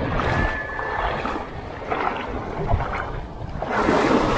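Small waves washing and splashing in shallow surf, with a louder rush of breaking surf starting near the end.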